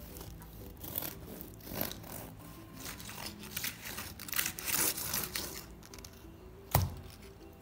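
A soft black sesame swirl bread loaf torn apart by hand: a run of crackly tearing and crinkling sounds as the crust and crumb pull open, then one sharp tap near the end.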